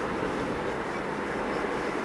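Steady low rumble of railway station ambience, with a faint hiss above it and no single event standing out.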